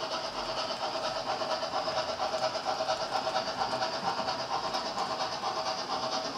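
HO-scale model tank wagons rolling steadily along the track, their small metal wheels rattling and clicking on the rails in a continuous, fast flutter.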